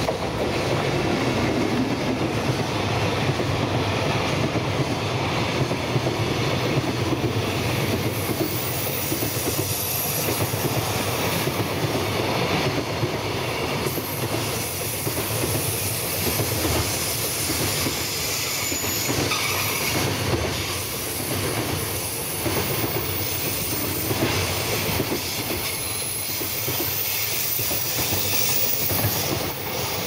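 JR Freight EF210 electric locomotive passing close by, followed by a long train of container wagons running past, the wheels clacking over rail joints. The sound falls away as the last wagon goes by near the end.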